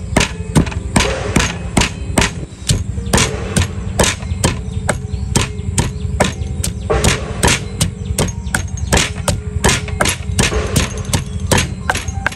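Steady, rapid knocking of food preparation, about three heavy strikes a second, over a low steady hum.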